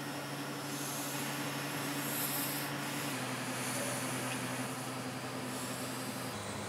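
Steady mechanical hum with hiss. Its low tone drops a step about three seconds in and again near the end.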